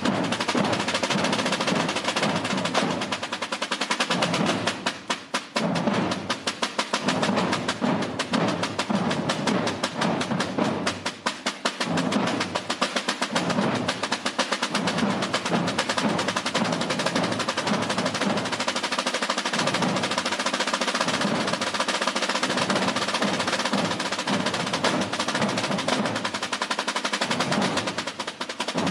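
Massed Holy Week procession drums, tambores and bombos, playing together without a break: a dense rattle of drum rolls over repeated bass drum beats.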